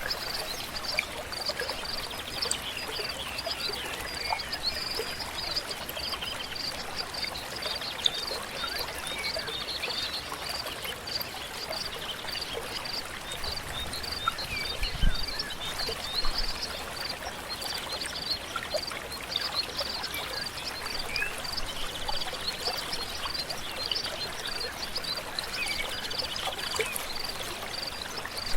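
Stream water flowing steadily, with a high chirp repeated about twice a second and scattered bird calls over it. A brief low thump comes about halfway through.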